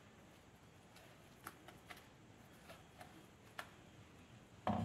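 A few faint, scattered soft clicks as wet ground masala paste is scraped off the fingers into beaten egg in a glass bowl.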